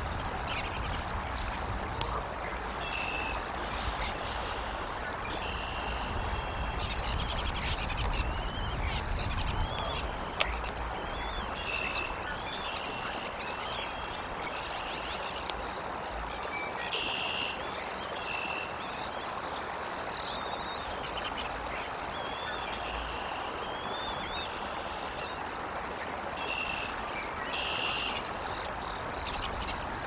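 Outdoor birds calling: short high chirps repeated every second or two, with a few warbled phrases, over a steady hiss. A low rumble runs through the first ten seconds, and a single sharp click comes about ten seconds in.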